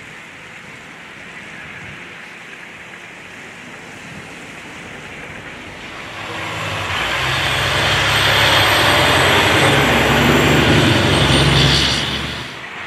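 Steady road noise, then from about six seconds in a fire truck's engine and its tyres hissing on a wet, slushy road grow loud as it drives past. The sound drops away near the end.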